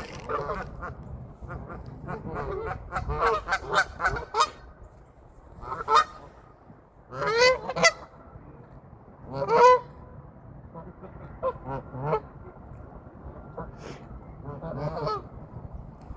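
Geese honking repeatedly, many short calls in clusters, with the loudest honks in the middle of the stretch.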